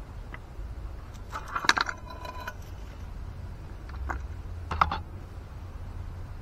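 Small hard objects handled on a work surface: a cluster of clicks with a brief metallic clink and ring about a second and a half in, then two sharp clicks near the end as the metal tube of E6000 glue is handled and opened beside the wooden shelf boards.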